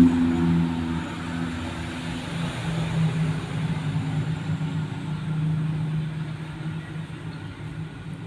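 A motor vehicle engine running steadily, a low droning hum that eases off a little toward the end.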